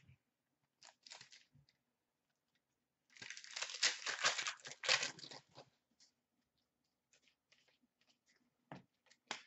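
A pack of hockey trading cards being torn open, its wrapper crackling and crinkling for about two and a half seconds in the middle. There is a brief rustle about a second in, and light clicks of the cards being handled near the end.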